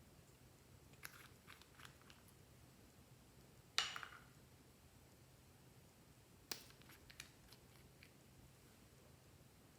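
Slime being handled, with a few scattered crackles and clicks: a small cluster about a second in, the loudest crackle about four seconds in, and more around six and a half to eight seconds in.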